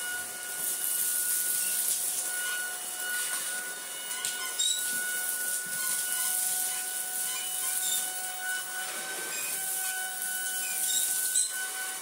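Cordless stick vacuum running on hard floor, a steady high motor whine over rushing airflow hiss, with a few small clicks as loose debris is sucked up the wand.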